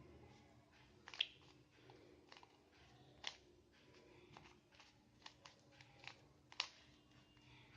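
Rubik's Cube being turned by hand: faint, irregular clicks of the plastic layers snapping round, about a dozen, three of them louder.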